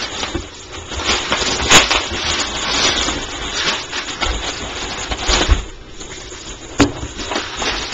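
Cardboard box and packing material being handled, rustling and scraping, with a couple of sharp clicks or knocks.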